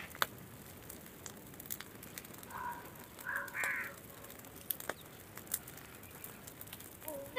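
A heap of dry brush burning, with faint sparse crackles and snaps. A crow caws a few times, loudly, a little before the middle.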